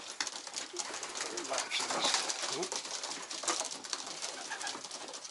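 Racing homer pigeons cooing in a small loft, among scattered light clicks and scratches.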